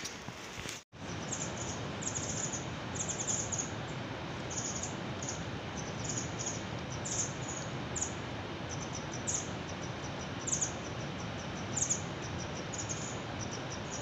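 Insects chirping in short, high, repeated clusters over a steady background hiss, with a brief dropout about a second in.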